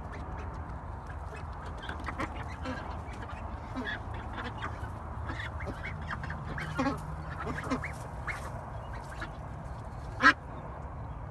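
Several young Pekin ducks quacking and calling in short, scattered bursts, with one much louder call about ten seconds in.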